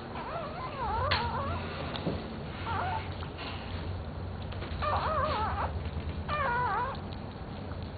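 Newborn puppy crying in four thin, wavering squeals while the mother dog licks and cleans it.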